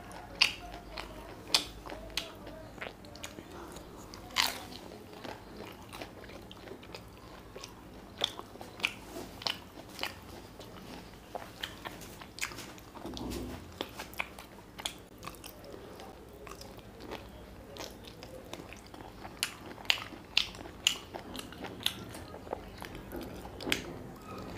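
Close-miked eating sounds: a man chewing mutton curry and biting meat off a mutton bone, with many irregular sharp mouth clicks.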